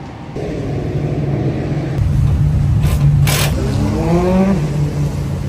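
Dirt-track race car engines running steadily, one rising in pitch briefly about three-quarters of the way through and then dropping back, with a couple of sharp knocks near the middle.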